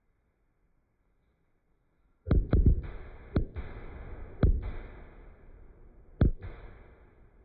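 Aerial firework shells bursting: about five sharp booms, starting about two seconds in, each trailing into a low rumble, with a steady crackling haze between them.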